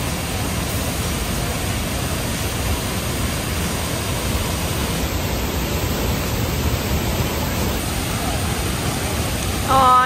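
Tall waterfall plunging into its pool: a steady, even rush of falling water. A person's voice breaks in briefly at the very end.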